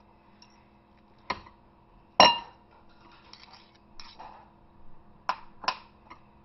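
A metal spoon clinking against a dish: a few separate clinks, the loudest about two seconds in with a brief ring, and two more close together about five seconds in.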